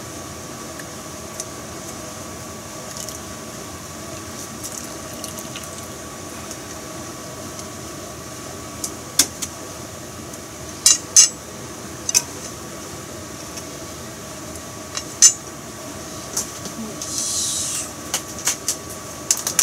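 Kitchen utensils clinking sharply against pots and bowls a few times over a steady hiss, then a short sizzle near the end as a drop of tempura batter goes into the hot frying oil.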